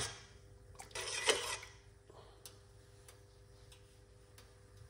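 A metal spoon clinking and stirring in a stainless steel saucepan of water, with a short clatter about a second in, then a few faint, evenly spaced ticks over a low steady hum.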